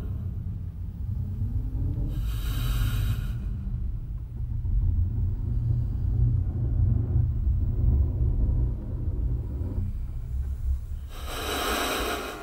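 A deep, steady low rumble from the performance's electronic sound design, with two loud rushing hisses of about a second each: one about two seconds in and one near the end.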